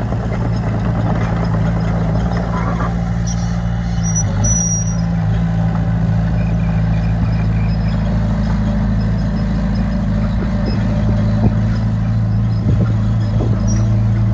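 Heavy diesel engine of construction machinery running steadily under load, with a brief high-pitched squeal about four and a half seconds in and a few knocks near the end.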